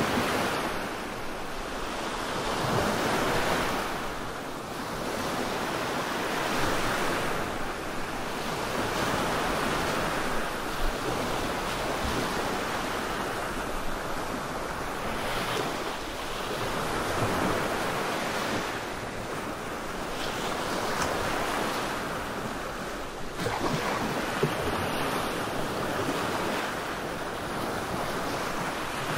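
Black noise for sleep: a continuous rushing hiss that swells and ebbs every few seconds, like surf washing on a shore.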